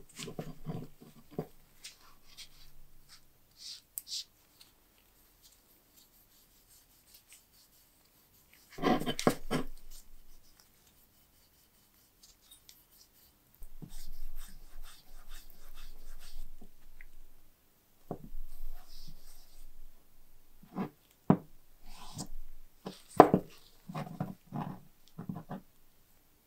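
A cotton ball wet with gun blue rubbing over a steel lock plate, blackening the bare metal, in two spells of steady scrubbing. Steel lock parts are handled and set down on a wooden workbench, giving a cluster of knocks about nine seconds in and a run of sharp knocks near the end.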